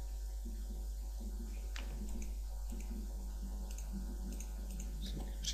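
Steady low electrical hum and hiss from a cheap recording microphone, with a couple of faint computer mouse clicks, one about two seconds in and one near the end.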